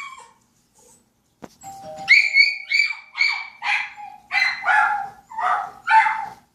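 A dog yipping: a quick run of about ten short, high-pitched yips, roughly two a second, sliding lower in pitch toward the end.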